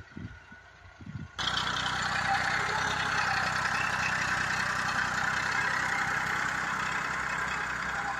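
New Holland 3230 TX Plus tractor's three-cylinder diesel engine running steadily as the tractor works the field. It cuts in abruptly about a second in, after a few faint thumps.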